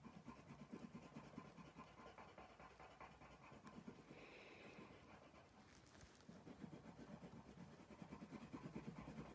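Faint, rapid scratching of a coloured pencil shading on paper, in two spells with a lull of a few seconds in the middle.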